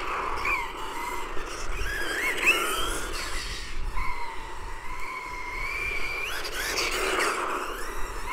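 Brushless electric motor of an XLF F11A 1/10 RC car whining as it is driven, the pitch gliding up and down several times as the throttle is worked, over a steady rushing noise.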